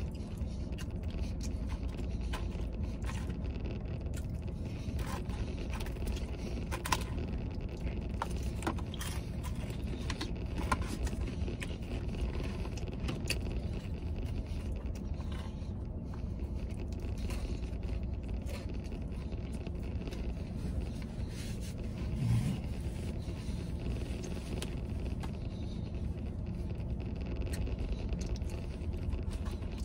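Steady low hum of a truck's idling engine heard inside the cab, with scattered small clicks and scrapes from eating fries with a plastic fork out of a paper tray.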